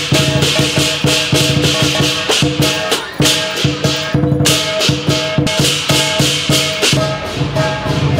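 Chinese lion dance percussion: a drum, clashing cymbals and a gong played in a fast, steady rhythm, with the cymbals' crashes dominating and the gong ringing underneath. The beat breaks briefly a little after three seconds and again around four seconds in.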